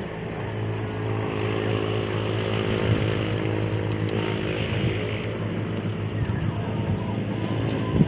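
A small boat engine running steadily, a low drone that holds one pitch, with a single knock near the end.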